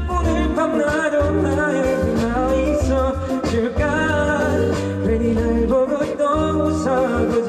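Live singing of a slow pop ballad, a solo voice over guitar accompaniment with a sustained low bass.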